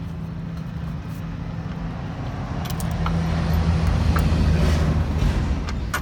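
A big truck going by on a highway: a low engine drone that swells over a few seconds and eases off near the end.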